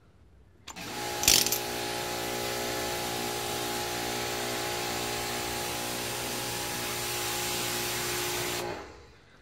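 Pressure washer starting up under a second in, running steadily with its spray hissing against car paint, then cutting out near the end. A brief louder burst of spray comes just after it starts.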